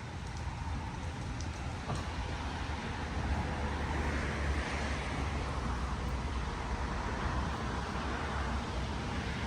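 Steady vehicle and road noise with a low rumble, swelling louder a few seconds in.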